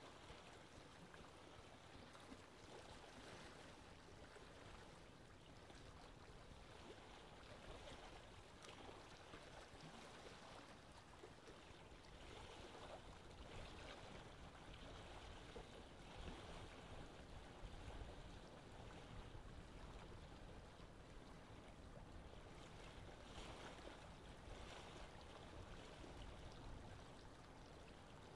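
Faint, steady trickling of running water.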